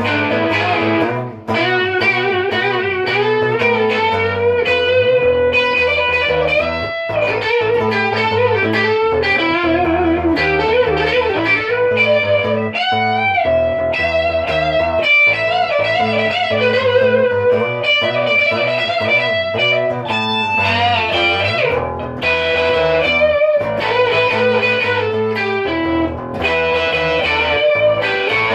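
Electric guitar music: a lead guitar melody with bends and vibrato over a steady bass line.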